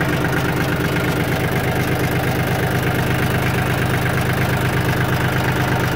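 Yanmar F22D compact tractor's diesel engine idling steadily, running smooth.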